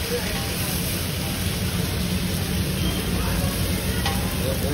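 Thin rounds of onion batter sizzling steadily on a large hot flat griddle, over a steady low rumble.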